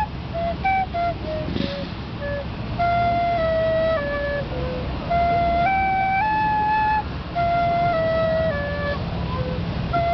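A small wooden flute playing a simple melody: short separate notes in the first couple of seconds, then longer held notes stepping up and down, with short breaks for breath between phrases.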